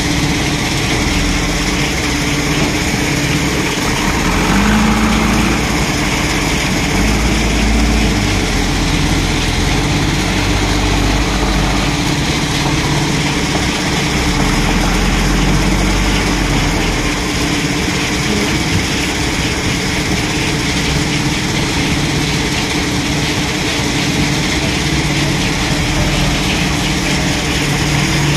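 JCB 3DX backhoe loader's diesel engine running steadily while working the front loader, its note rising and easing at times as the bucket is raised and tipped.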